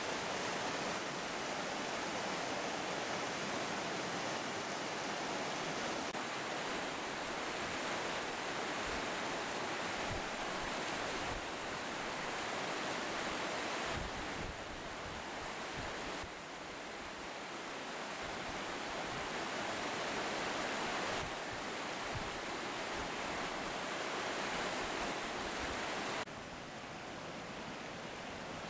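Rushing water of a mountain trout creek: a steady hiss of flowing water. Its level shifts abruptly several times.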